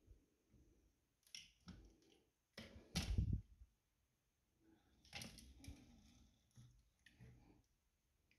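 Faint handling noises as fingers work the thread rigging and small yard fittings of a wooden model ship: scattered soft clicks and rustles, with a louder rustle about three seconds in and another about five seconds in.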